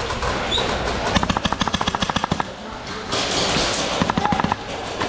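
Airsoft guns firing on full auto: a rapid burst of about a dozen shots roughly a second in, then a shorter burst near the end.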